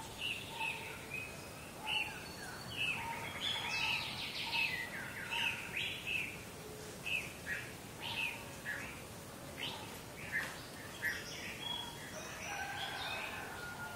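Morning village ambience of many birds chirping and calling at once, short overlapping calls and quick pitch-sweeping notes, over a steady low background hiss.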